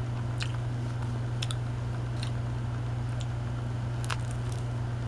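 Person chewing a bread roll with chocolate spread: faint mouth clicks about once a second over a steady low hum.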